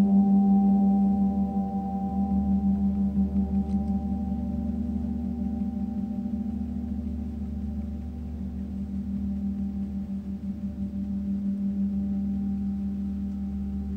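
Meinl Eight Corners of Heaven mirror gong sounding a sustained low tone with a cluster of higher overtones, throbbing with a quick pulsing beat, played softly with a felt-headed mallet. The sound swells a little about two and a half seconds in and again near the end, then slowly fades.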